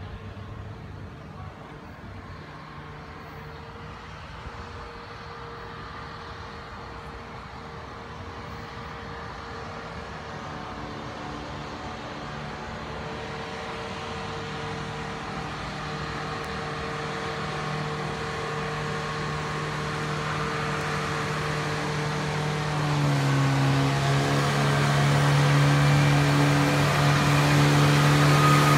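Engine of a rail-mounted track maintenance crane running as it travels along the track, growing steadily louder as it approaches. About three-quarters of the way through, its note drops lower and gets louder still.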